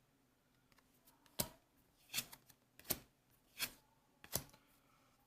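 Trading cards being handled: about five short, faint snaps and rustles, spaced less than a second apart.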